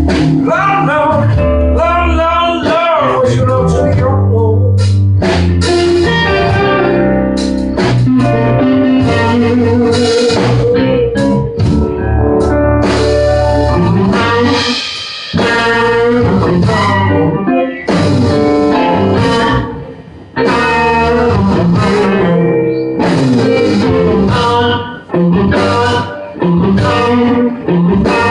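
Live blues band playing an instrumental stretch, with guitar carrying the lead over a steady bass line.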